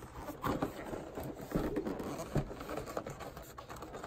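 Cardboard advent calendar box handled and pried at by hand: irregular scraping and rustling of card with several short taps and knocks.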